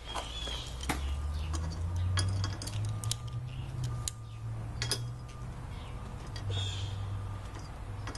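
Scattered light clicks and metallic clinks of garage door opener rail and trolley parts being handled and snapped into place, over a steady low hum.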